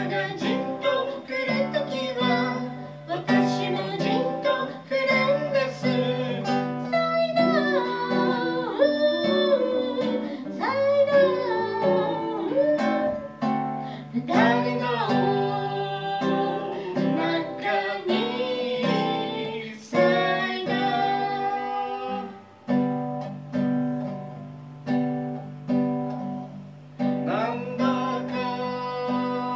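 A man singing to his own strummed acoustic guitar. The voice drops out for a few seconds about two-thirds of the way through, leaving the guitar alone, and comes back near the end.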